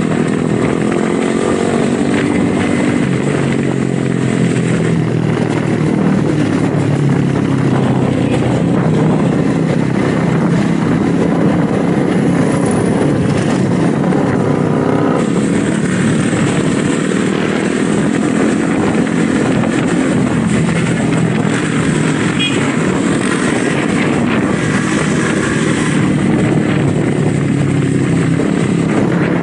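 Motorcycle engine running under way, its pitch drifting up and down as the speed changes, over steady wind and road noise.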